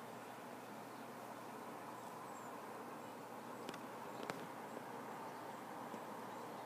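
Faint, steady outdoor background noise, with two short sharp clicks a little past the middle, about half a second apart.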